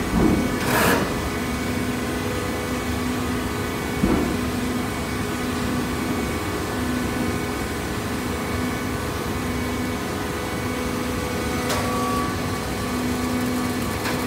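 Cardboard baling press running: a steady machine hum with a low tone that comes and goes, and a few short knocks.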